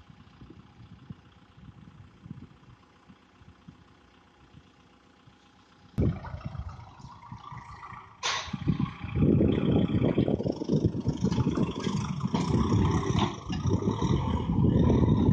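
Kubota farm tractor's diesel engine running, faint at first, then, after an abrupt change about six seconds in, loud and steady as the tractor pulls a disc plough through the soil. A single sharp click comes a little after eight seconds.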